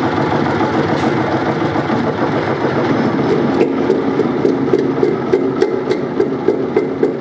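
Hydraulic broaching press running with a steady hum as its ram pushes a serrated spline broach down through a steel sprocket blank. From about halfway, regular clicks come about three a second as the broach cuts.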